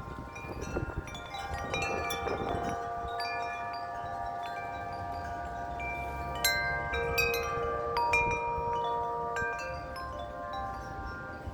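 Wind chimes ringing in strong, gusty wind, many struck tones overlapping and ringing on, with a flurry of strikes about six to eight seconds in. Wind rumbles on the microphone in the first few seconds.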